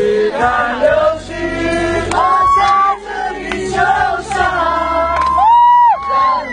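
A large crowd singing along together, mixed with high, shrill cheers that grow louder and longer near the end.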